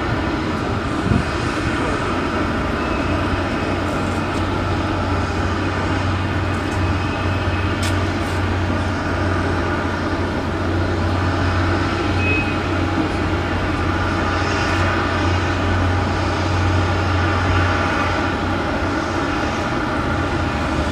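Steady jet engine and airflow noise from a Boeing 737-800, a constant drone with a strong low hum that does not rise or fall.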